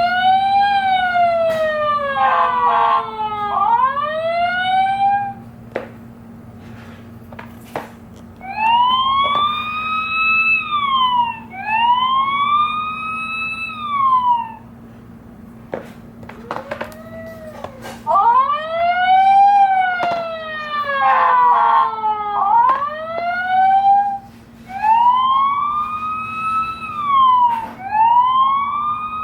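Emergency-vehicle siren sound effects played from a children's sound book: a series of siren clips, each a few seconds of rising-and-falling wails, some overlapping, separated by short pauses with sharp clicks. A steady low hum runs underneath.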